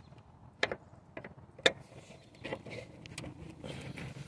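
Phillips screwdriver backing out tail-light mounting screws: scattered sharp clicks and small scrapes of the tool in the screw heads and against the plastic housing, the loudest click a little under two seconds in.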